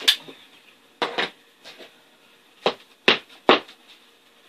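A hand staple gun firing staples into an ATV seat's vinyl cover, then a claw hammer tapping the staples flush: about seven sharp, single knocks at uneven intervals.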